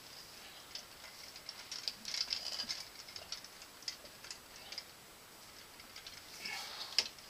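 Light scattered clicks and rattles of a sump pump and its pipe fittings being handled in the sump pit. They are busiest about two seconds in, with one sharper click near the end.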